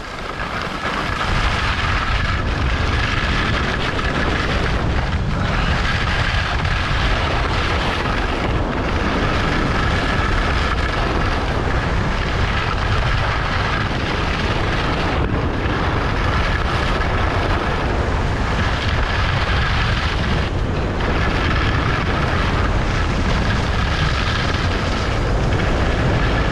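Skis running and scraping over hard-packed piste snow during a fast descent, under a steady rush of wind on the microphone. The noise dips briefly several times.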